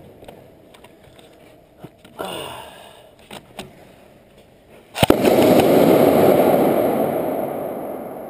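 Airsoft grenade going off: a sharp bang about five seconds in, then a loud rushing hiss that slowly fades over about three seconds.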